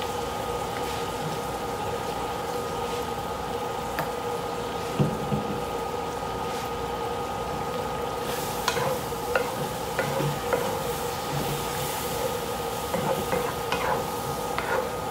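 Onions and mushrooms sizzling in a cast iron skillet on an induction cooker, with a steady whine held throughout. About halfway in, a wooden spatula begins stirring and scraping flour into the pan for a roux, with scattered knocks against the iron.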